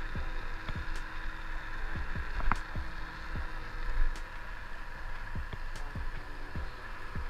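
Wind rushing over the action camera's microphone on a moving scooter, with irregular low buffeting thumps over a steady road hiss.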